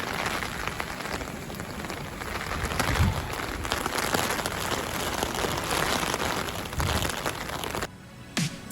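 Heavy rain falling steadily, with a few low thuds along the way; the rain noise cuts off abruptly near the end.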